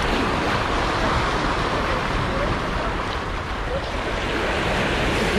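Small waves washing and breaking over shoreline rocks in a steady rush, with wind noise on the microphone.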